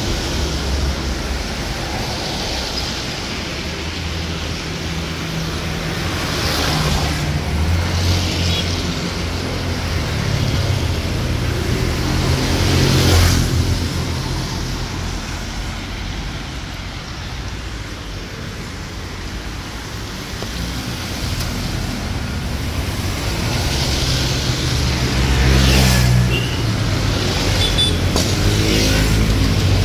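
Street traffic on a wet road: cars and motor scooters passing one after another, tyres hissing on the wet surface over a steady low rumble, with about three louder passes.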